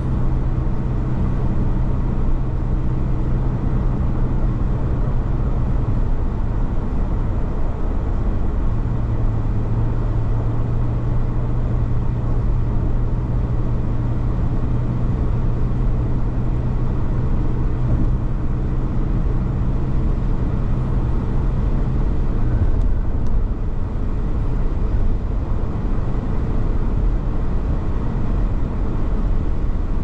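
Steady road noise inside a car cabin driving at highway speed, with a low hum that shifts in pitch a few times.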